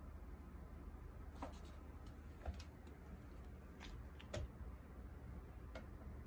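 Quiet room tone with a low steady hum, broken by about five faint, light clicks and taps from small items being handled.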